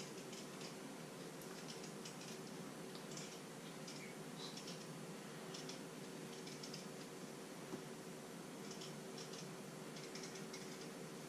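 Small kitchen knife peeling a raw potato by hand: a run of faint, short scraping strokes at an uneven pace, over a steady low hum.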